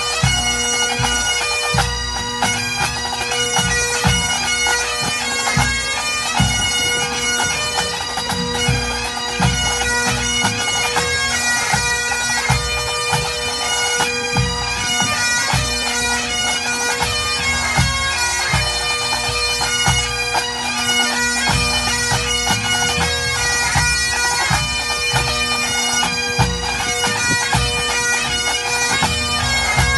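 Pipe band playing: Great Highland bagpipes sound a steady drone under the chanter melody, with snare, tenor and bass drums beating along.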